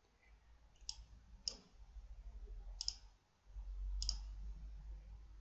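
Four sharp computer mouse clicks, spaced irregularly over about three seconds, over a low steady hum that grows louder near the end.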